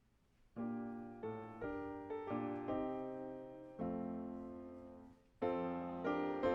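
Piano playing a slow series of chords, each struck and left to ring and fade, starting about half a second in, with a brief pause near the end before the next phrase.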